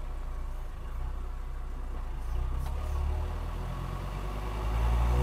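Classic Mercedes G-Wagen diesel engine running as the truck is driven, heard from inside the cab: a steady low drone that swells louder near the end.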